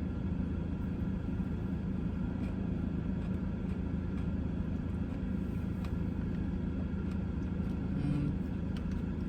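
Steady low rumble and hum of an idling car heard from inside, with a few faint clicks.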